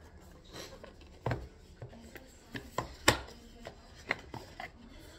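A cardboard CD box set being handled and opened: a string of light taps, rubs and clicks as the card CD sleeves are slid out, with the sharpest knock about three seconds in.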